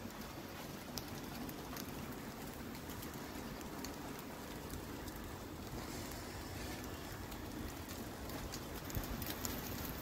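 Light rain falling: a steady hiss with scattered drops ticking.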